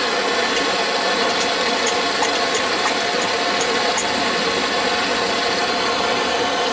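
Antique paraffin blowlamp burner running, a loud, even rush of burning paraffin vapour with a few faint ticks. It is the sign that the pre-heated, pumped lamp has lit and is working.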